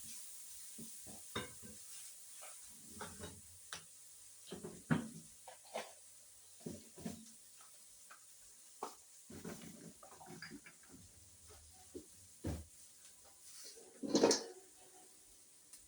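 Kitchen utensils and dishes clinking and knocking during food preparation: irregular short knocks, with a louder clatter about fourteen seconds in.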